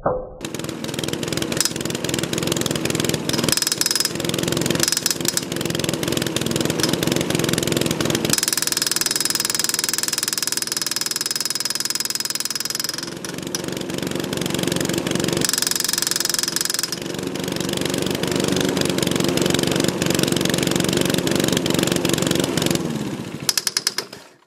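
Stiga lawn mower's SV150 petrol engine running loudly while oxygen is fed into its intake through a tube to lean the mixture. The note turns thinner and hissier twice, and near the end the engine breaks into a few separate firing strokes and stops.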